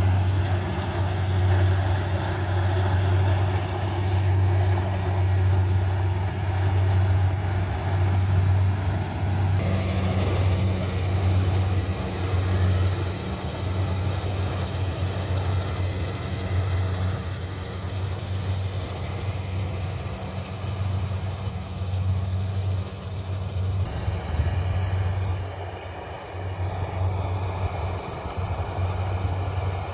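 Kubota DC70 combine harvester's diesel engine and threshing machinery running at steady working speed while cutting lodged rice, giving a constant low drone. The tone shifts abruptly about a third of the way in and again near the end.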